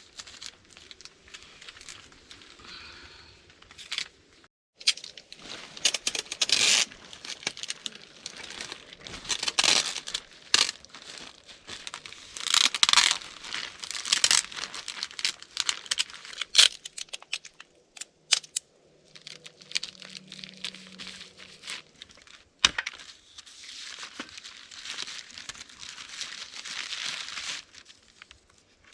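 Clear tape being pulled off the roll in rasping strips and torn, with a plastic tarp crinkling and crackling as it is patched and reinforced. There are a few sharp clicks in between.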